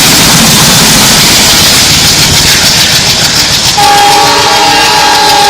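A train passing close and loud, wheels clattering over the rails, then a little under four seconds in a locomotive horn sounds one steady blast of several tones at once that holds on.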